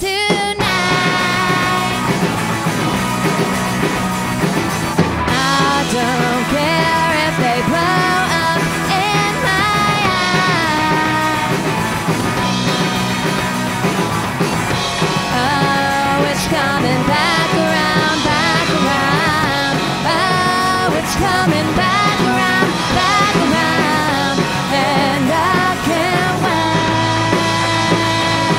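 A rock band playing live, loud and steady, with a melodic lead line over the full band; the music comes back in right at the start after a brief drop.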